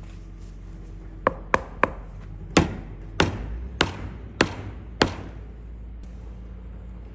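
Sharp wooden knocks on a cricket bat, each ringing briefly: three quick taps about a second in, then five harder, evenly spaced blows about two-thirds of a second apart.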